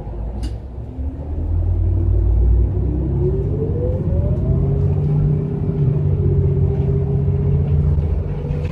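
City bus engine rumbling low as the bus speeds up, heard from inside the cabin. A whine climbs in pitch over about three seconds, then holds steady as the bus cruises.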